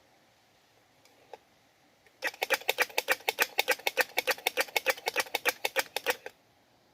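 Squirrel calling in a fast, even run of sharp clicking chucks, about nine a second, lasting about four seconds from about two seconds in: a squirrel's mating call. A single faint click comes just before.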